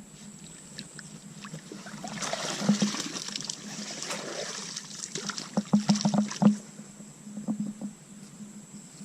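Water splashing and sloshing for a few seconds, with a quick run of sharp knocks and clicks near the middle.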